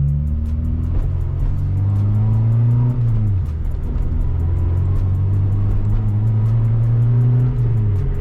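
Supercharged K24 four-cylinder in an Acura RSX pulling under light throttle. Its pitch climbs slowly, drops quickly about three seconds in, then climbs again and drops near the end, like two upshifts.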